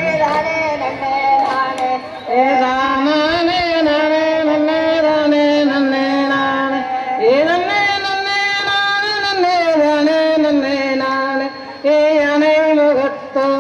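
A woman singing a Tamil kummi folk song in long, drawn-out phrases. Her voice glides upward about halfway through, and there is a brief break near the end.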